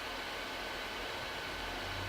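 Steady background hiss with a faint, thin steady tone; no distinct sound events.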